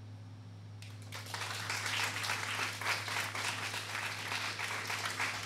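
Small audience applauding at the end of a talk, the clapping starting about a second in and quickly building to a steady level.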